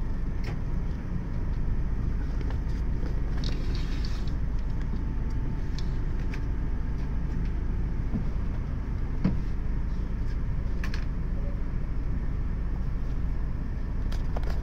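Highway coach's engine idling, heard from inside the passenger cabin as a steady low rumble, with a few light clicks here and there.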